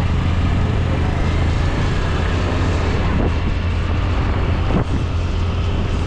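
Honda Dio scooter being ridden along the road: engine, road and wind noise in a steady, loud rumble.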